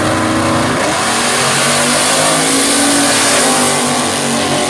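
A 1966 Pontiac GTO drag car and a second Pontiac muscle car racing side by side down a drag strip, their V8 engines at full throttle and climbing in pitch as they accelerate away.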